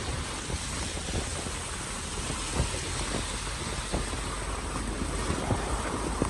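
Steady rushing noise of a vehicle on the move, with irregular low thumps of wind buffeting the microphone.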